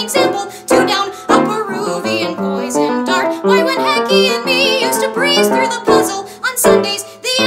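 A woman singing a musical-theatre song to her own piano accompaniment, with vibrato on her held notes.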